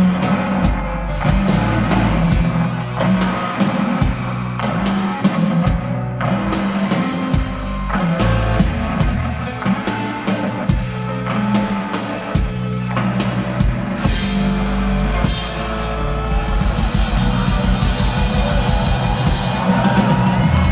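Live rock band playing: drum kit keeping a steady beat under sustained bass and electric guitars. About two-thirds of the way through, the sound grows denser and brighter as the upper range fills in.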